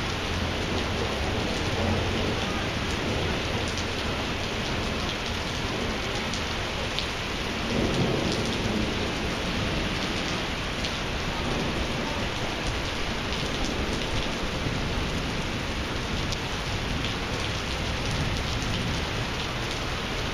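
Heavy thunderstorm rain pouring onto wet pavement in a steady hiss, with thunder rumbling underneath; the rumble swells louder about eight seconds in.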